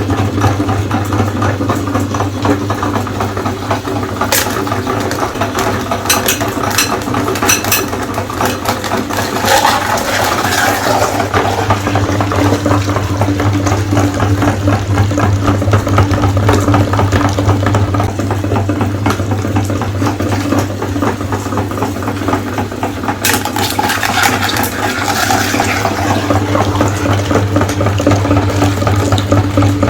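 Electric meat grinder motor running steadily with a low hum while eggs are ground through it, with crackling and wet squishing that comes in clusters a few seconds in and again near the end.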